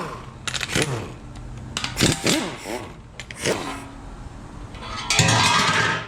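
Tools working on the fasteners of a GM LS1 engine's windage tray: metallic clicks and short squeaking glides, then a louder steady buzz for about a second near the end.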